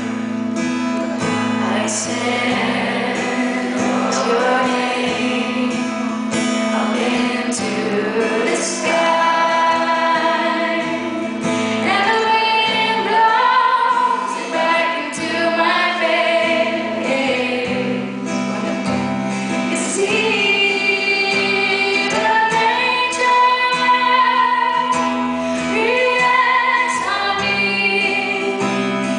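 A woman singing solo while playing an acoustic guitar, performed live.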